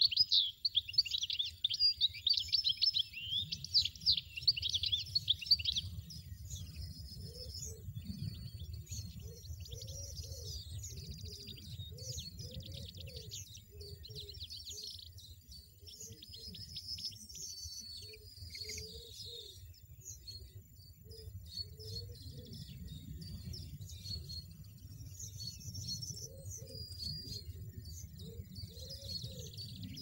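European goldfinch nestlings begging at the nest while being fed, with rapid, dense high chirping for about the first six seconds. After that, sparser and quieter chirps and twitters carry on.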